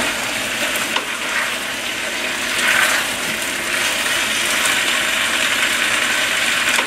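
Mixed vegetables and seafood in sauce sizzling over high heat in a stainless steel pot while being tossed and stirred with wooden spatulas, with a few light knocks. The sizzle swells briefly near the middle.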